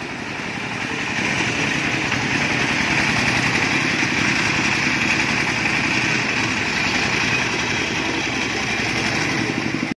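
Single-cylinder diesel engine of a four-wheel-drive công nông farm truck running under load as it drives through mud. It gets louder over the first second or so, then runs steadily.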